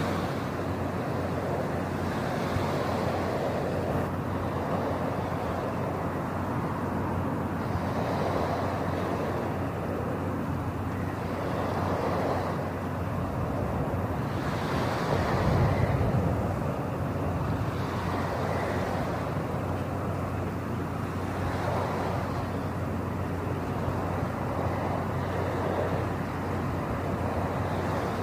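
Steady rushing noise over a low hum, swelling softly every few seconds, with one stronger swell about halfway through.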